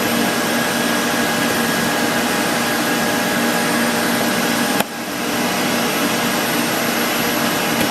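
Steady loud rushing noise of running machinery, with a few faint steady tones in it; it dips briefly about five seconds in.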